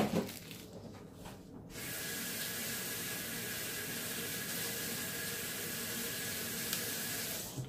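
A short knock at the very start, then a steady hiss that starts abruptly about two seconds in and cuts off sharply near the end, with a faint steady tone inside it.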